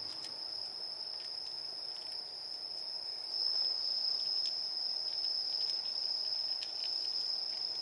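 Night insects chirring as one steady high-pitched tone, with faint crunching clicks of a cat eating dry kibble from a dish.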